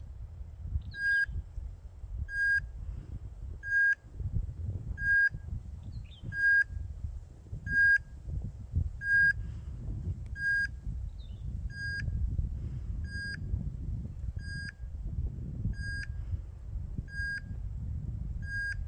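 A dog's beeper collar in point mode, giving a short, even beep at one fixed pitch about every 1.3 seconds: the signal that the dog is standing still on point. A low rumble of wind on the microphone runs underneath.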